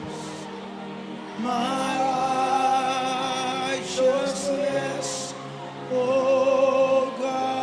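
Worship music with sustained sung notes held with vibrato over a soft instrumental backing.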